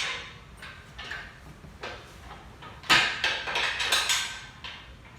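Metal clanking and rattling from a steel engine hoist and its lifting chain being handled and set up. There is a sharp clank at the start, a few light knocks, then a loud clank about three seconds in followed by about a second of rattling.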